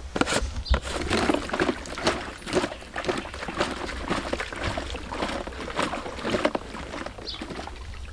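About 16 litres of water sloshing in a sprayer tank as it is shaken to mix in the wood vinegar, with irregular splashes and knocks.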